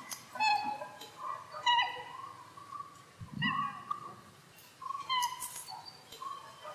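A string of short, squeaky animal calls, each with a slightly falling pitch, coming about every second or two; the soundtrack of a cat-entertainment video that offers them as rabbit sounds.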